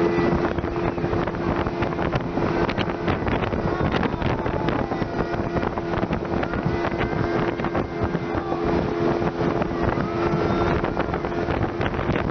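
Small motorboat underway, its engine running with a steady, unchanging hum, with wind buffeting the microphone.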